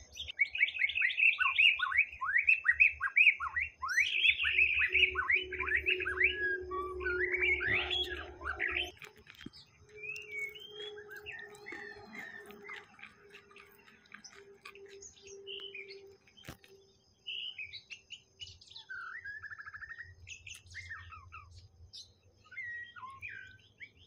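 White-rumped shama singing: a loud run of rapid, falling whistled notes for about the first nine seconds, then softer, scattered phrases. A steady low hum sounds beneath the song through the middle.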